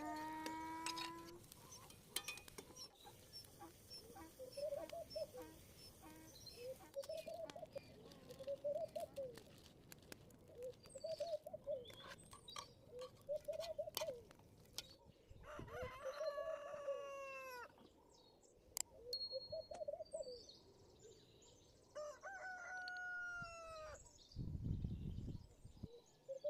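Rooster crowing twice, one crow about 16 seconds in and another about 22 seconds in, each under two seconds long. Between and around them, short arched bird calls repeat about every second and a half.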